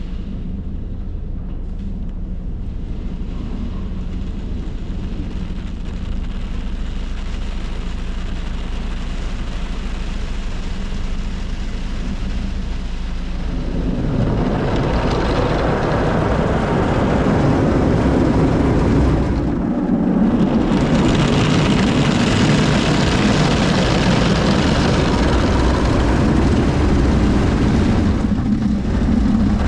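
Automatic soft-touch car wash heard from inside the car: a low steady hum, then about halfway through a louder rush of water spray and wash equipment working against the car's body, dipping briefly once.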